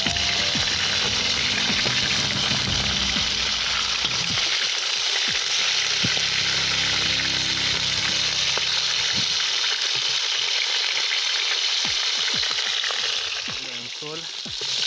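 Pork ribs sizzling loudly in hot fat in a cast-iron kazan, with scattered clicks and scrapes of a metal spatula turning them. The sizzle dips briefly near the end.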